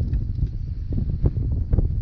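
Strong wind buffeting the camera microphone: a loud, gusty low rumble, with a few faint ticks scattered through it.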